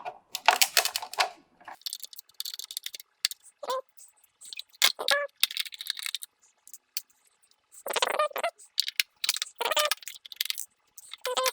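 Small hand-tool work on a drone's plastic body: irregular light clicks and metallic rattles of a screwdriver bit and small screws while Torx screws are being removed.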